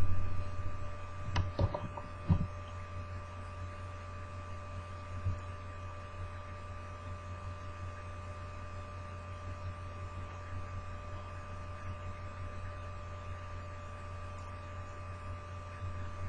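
Steady low electrical hum with a few thin steady tones above it. A handful of short, sharp sounds come in the first two and a half seconds.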